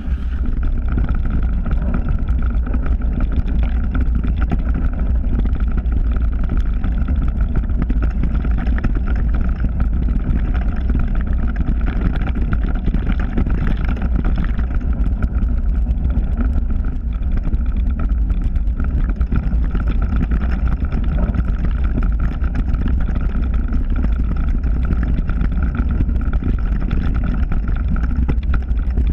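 Mountain bike riding fast over a leaf-covered dirt trail: a steady, loud rumble of wind on the camera's microphone mixed with tyre and frame rattle over the ground.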